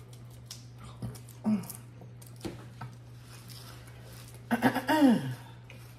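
A person's wordless voice: a short hum about a second and a half in, then a louder vocal sound falling in pitch near the end, between faint clicks of eating at the table. A steady low hum runs underneath.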